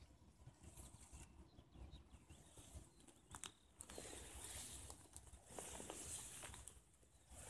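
Mostly near silence, then faint rustling footsteps through tall grass and alfalfa in two stretches starting about four seconds in, with a few light clicks.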